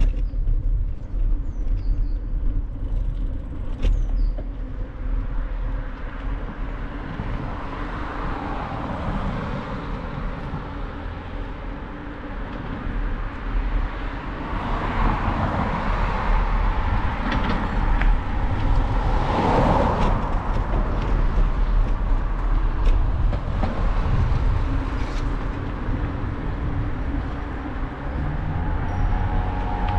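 Street traffic heard from a moving bicycle: a steady low rumble of wind and road noise, with a car passing by that swells and fades about halfway through.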